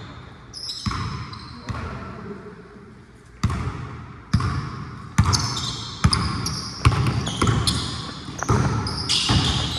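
Basketball dribbled on a court floor, a steady run of echoing bounces about one a second that grows louder and quicker from the middle on. Short high squeaks of sneakers on the court come in between the bounces.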